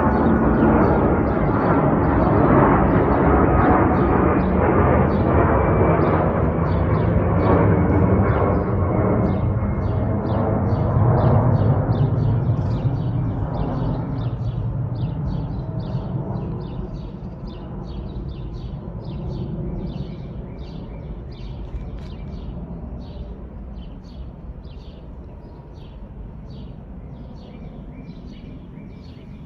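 Airbus A330-343's Rolls-Royce Trent 700 turbofan engines at takeoff thrust: a loud jet roar that fades steadily as the airliner climbs away. As the roar dies, a rapid chirping, about two chirps a second, comes through.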